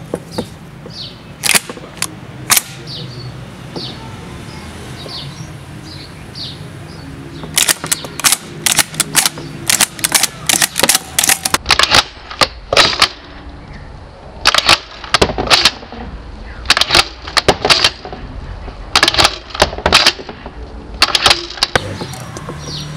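Metallic clicks and clacks of an MKA 1919 semi-automatic 12-gauge shotgun's action being worked by hand: the bolt racked and shells cycled out of the ejection port, with the box magazine handled. A few single clicks at first, then quick clusters of sharp clacks from about a third of the way in.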